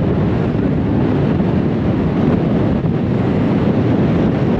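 Steady, heavy wind buffeting the microphone on the deck of a moving river passenger ship, over the rush of choppy river water.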